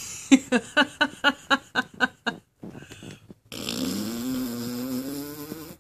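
A woman laughing: a rapid run of short "ha" pulses, about four a second, for a couple of seconds. Then, about three and a half seconds in, one long breathy, wheezy laugh that lasts to the end.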